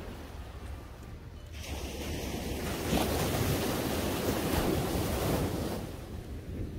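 Sea waves breaking on a sandy beach: a wave's hiss swells up about a second and a half in, is loudest through the middle and fades near the end. A low wind rumble on the microphone runs underneath.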